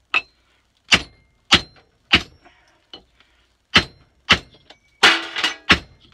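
Hammer blows on a scrap block of wood laid over a maul head, driving a hardwood wedge into the split top of a new wooden handle to lock the head on. There are about eight sharp knocks, roughly every 0.6 s, in two runs with a short pause about halfway. A faint ring follows some blows, and one longer, rattling knock comes near the end.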